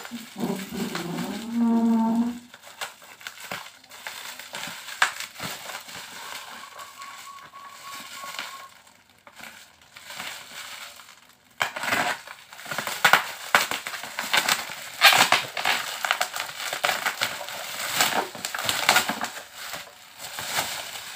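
Plastic parcel wrapping and packing tape crinkling and tearing as a package is unwrapped, with dense crackling from about twelve seconds in. A brief voice-like hum sounds in the first two seconds.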